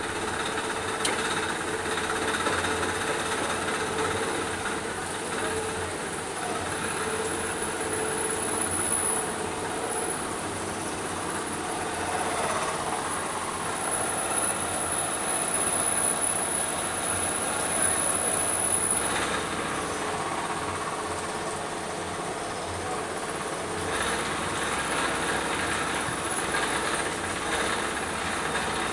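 An engine running steadily, with a faint high whine over the mechanical noise.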